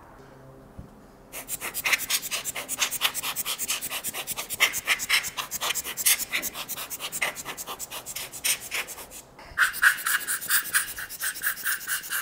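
A screwdriver working the bolts that hold the magnet to a Wharfedale Super 12 driver's frame, giving a fast run of rasping clicks, about ten a second. The clicking breaks off briefly about nine seconds in, then starts again, sharper.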